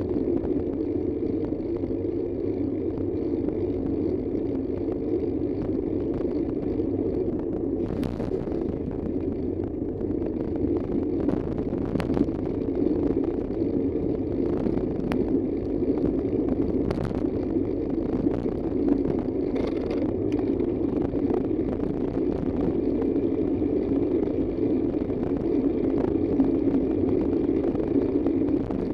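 Steady road and engine noise of a moving vehicle, with a few sharp clicks scattered through it.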